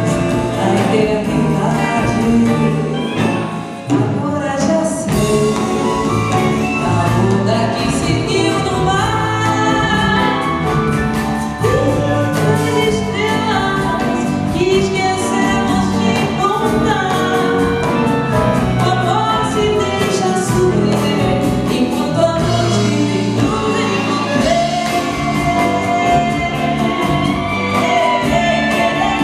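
A singer performing with orchestral accompaniment, with backing voices.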